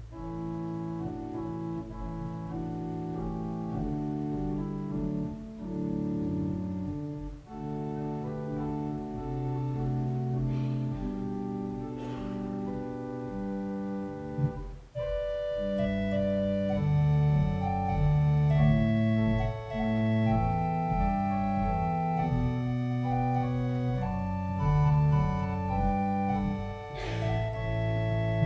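Organ playing slow, sustained chords, a prelude before the service. About halfway through it breaks off briefly, then goes on louder with higher notes.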